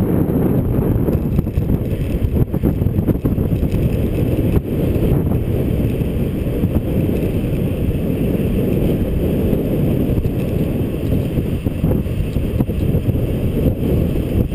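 Wind rushing over an action camera's microphone on a bicycle coasting fast downhill: a loud, steady low rumble.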